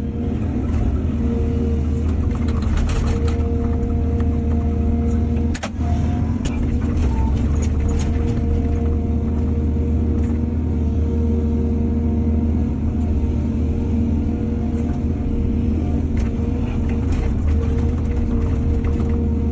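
Heavy diesel engine of an excavator running steadily, with scattered sharp knocks and clanks over the drone.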